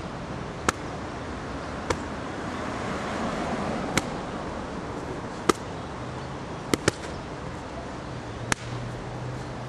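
Punches landing on a focus mitt held up by a partner: seven sharp slaps at uneven spacing, including a quick double about seven seconds in.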